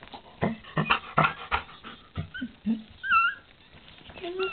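Newborn puppy crying in short, thin, high squeaks, a few of them about two to three seconds in and another near the end. Soft clicks and rustling come before them, in the first second and a half.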